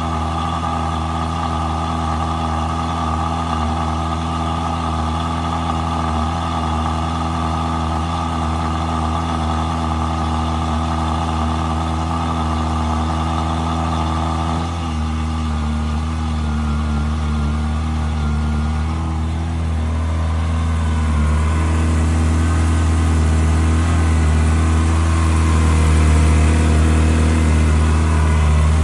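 2004 Ferrari 360 Spider's 3.6-litre flat-plane-crank V8 idling steadily as it warms up after a cold start. Its note changes about halfway through, and the sound grows louder toward the end.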